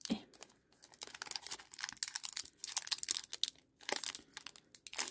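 Foil wrapper of a Pokémon TCG Sword & Shield booster pack being torn open and crinkled in the hands: a dense run of sharp crackles with a short break a little under four seconds in.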